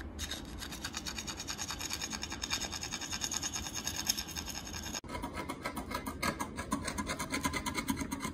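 Knife blade scraping hardened sabi urushi lacquer putty off the repaired crack of a glazed ceramic plate, in quick, repeated short scratching strokes. The sound changes character about five seconds in.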